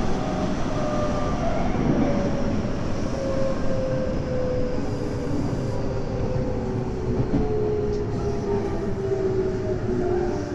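Tobu 9050-series electric train running, with a steady rumble of wheels on rail. Several thin motor whine tones glide slowly down in pitch as the train slows.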